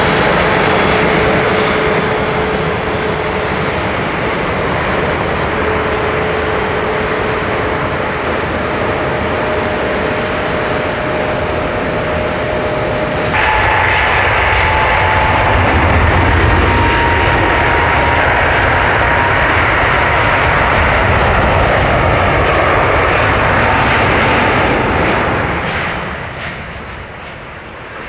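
Airbus A350-900 Rolls-Royce Trent XWB turbofan engines running with a steady whine over a broad roar. About 13 seconds in the sound changes abruptly to a higher whine with a deeper rumble, and about 26 seconds in it falls to a quieter, duller roar.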